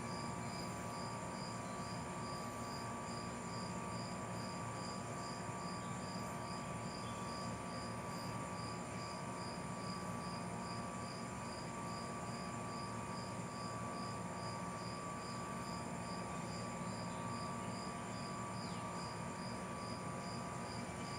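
Insect chirping steadily, a high pulsed chirp repeating evenly about two to three times a second, over a steady hum and hiss.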